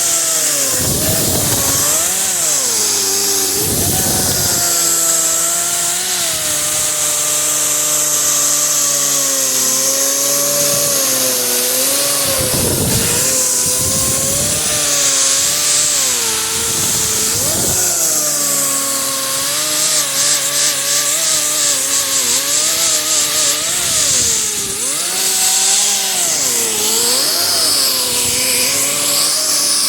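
Power sander running a new 36-grit Norton disc, stripping paint from a car's steel front fender: a steady motor whine with grinding hiss, its pitch dipping and recovering again and again as the disc is pressed into the panel.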